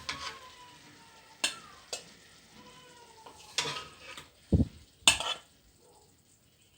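Fried tilapia pieces being lifted out of hot oil in a karahi with a metal spatula: a faint sizzle of the frying oil with several sharp scrapes and clinks of the spatula on the pan, and a dull knock about four and a half seconds in.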